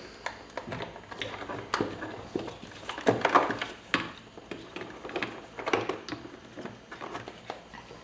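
Small plastic clicks, taps and rustles, irregular and scattered, from hands working a window-switch unit and its wiring cable through a car's plastic door trim.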